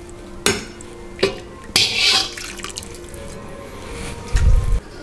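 Broth splashing in a pot as pieces of boiled meat and bone are dropped back in, with a few sharp clicks along the way. A dull low thump near the end is the loudest sound.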